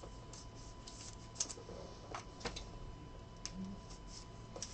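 Trading cards and plastic sleeves being handled on a table: a few faint, scattered light clicks and rustles.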